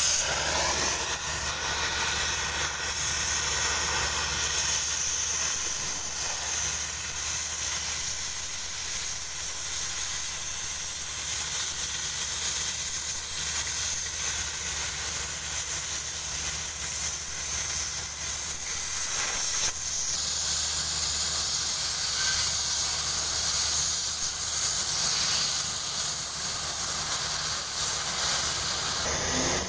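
Oxy-fuel cutting torch hissing steadily as its jet cuts through 20 mm steel plate.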